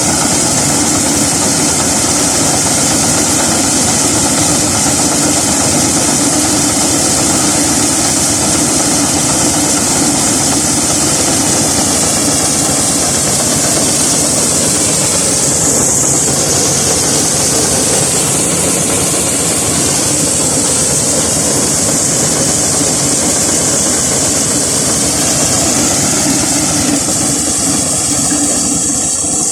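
Engine-driven corn sheller running steadily, a loud constant mechanical din.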